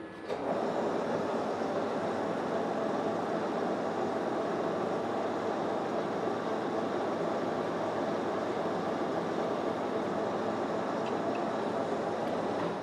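Metal lathe starting up about half a second in and running steadily, its three-jaw chuck spinning while a lathe tool takes a light facing cut on a small vise part; it switches off near the end.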